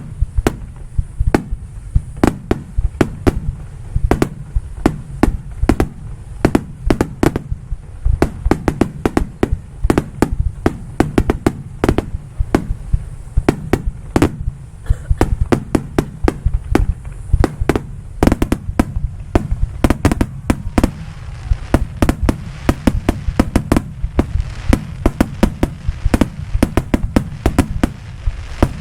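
Aerial fireworks shells bursting in rapid, irregular succession, several sharp bangs a second, over a continuous low rumble of booms.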